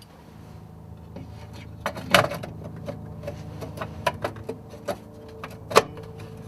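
Sharp clicks and knocks of hand tools and cable handling while wiring up a fuse box, the two loudest about two seconds in and near the end, over a steady low hum.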